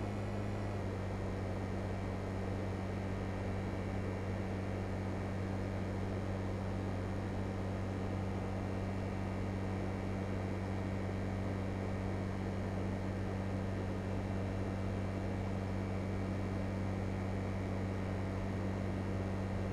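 LG Multi V 5 air conditioning unit running: a steady low hum with a whirring noise over it, its tone shifting slightly just under a second in.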